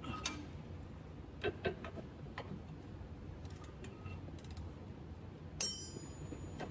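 Hand tools working a seized strut pinch bolt at a van's steering knuckle: scattered light metallic clicks and clinks of the socket wrench, then a short metallic scrape with a ring near the end.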